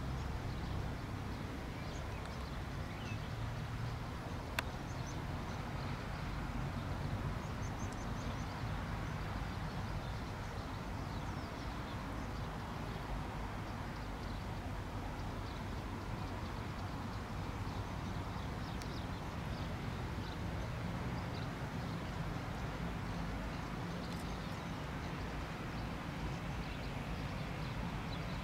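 Airbus A320-214's CFM56 jet engines at taxi power as the airliner lines up, a steady distant rumble and hum, with small birds chirping faintly over it. A single sharp click about four and a half seconds in.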